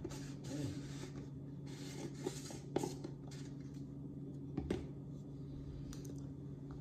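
Cornstarch being shaken from a plastic jar into a plastic mixing bowl: soft rustling and scratching, with a few light knocks of the jar. A steady low hum runs underneath.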